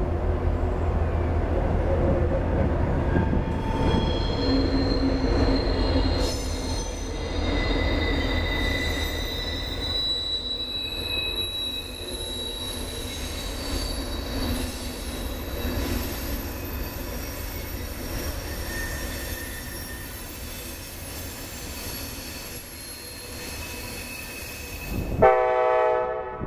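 Norfolk Southern freight train led by a GP38-3 and an SD40-2 diesel locomotive rolling by: the locomotives' low engine rumble fades over the first few seconds while the freight cars' wheels squeal on the rails in several long high-pitched tones. Near the end a diesel locomotive horn sounds briefly and loudly.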